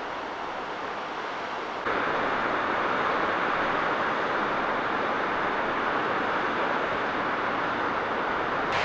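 Steady rushing of a cascading mountain waterfall. About two seconds in, it gives way abruptly to a louder, brighter steady rushing noise.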